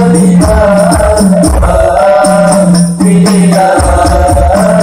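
Men singing a maulid devotional song in Arabic through a PA system, over a steady beat of low hand-drum strikes and jingling percussion.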